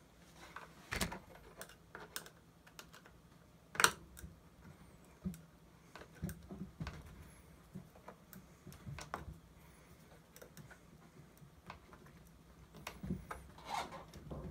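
Irregular light clicks and knocks of a screw being tightened by hand with a hand tool, with a sharper click about four seconds in.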